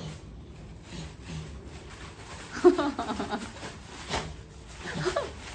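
Sheets of tissue paper rustling and crinkling as a toddler grabs and flings them. A short, loud voice sound, such as a child's squeal or a laugh, comes about two and a half seconds in.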